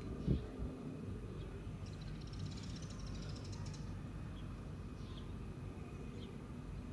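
Outdoor ambience with a steady low rumble, with small birds giving short, scattered chirps and a rapid high chatter in the middle. A single sharp knock comes just after the start.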